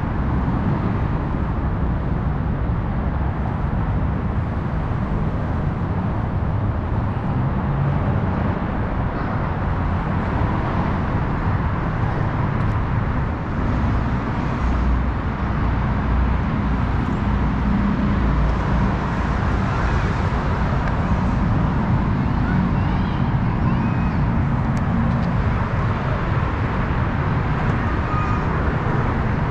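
Steady rumble of freeway traffic, a continuous deep noise with no distinct events.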